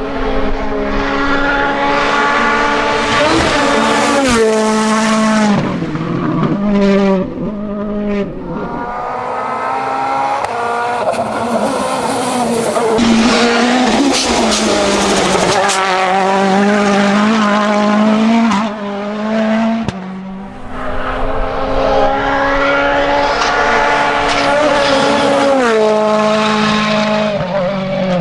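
Rally car engines revving hard, the pitch climbing and then dropping in steps as the cars change gear and brake for corners. The cars pass at speed, with a spell of louder, noisier sound in the middle.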